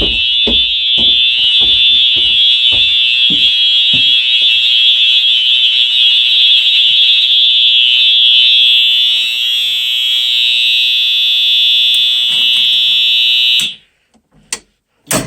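Wheelock EH-EL1 fire alarm horn sounding continuously with a loud, steady, high-pitched tone, then cutting off suddenly near the end. A couple of short clicks follow.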